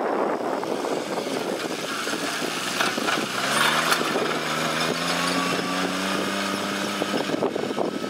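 John Deere tractor's diesel engine running under load as it pulls a disc plough through dry soil, with wind on the microphone. About three seconds in, the engine's steady note comes through clearly, rising slightly in pitch, then fades back into the wind near the end.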